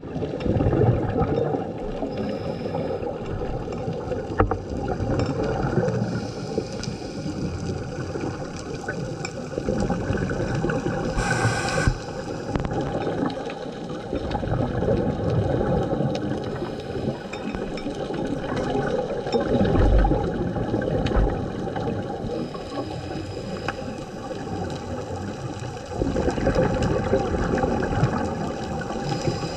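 Scuba bubbles gurgling and rumbling underwater, muffled through a GoPro's waterproof housing, swelling and fading every several seconds, with a brief hiss about eleven seconds in.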